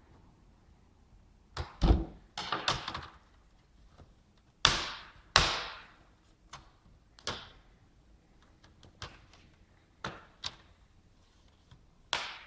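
Plastic clips of a Toshiba Satellite P750 laptop's screen bezel snapping loose as the bezel is pried off, a series of sharp clicks and cracks. About a dozen snaps come at irregular gaps of a second or so, the loudest about two seconds in and again around five seconds in.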